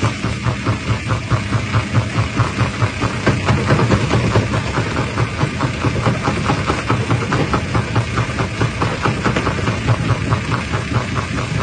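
Jaw rock crusher running: a steady heavy machine drone with an even rhythmic pulse of about four to five beats a second.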